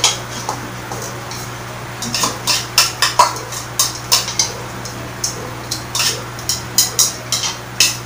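Chopsticks clicking and scraping against plastic bowls in irregular, quick clicks while food is eaten from them, over a steady low hum.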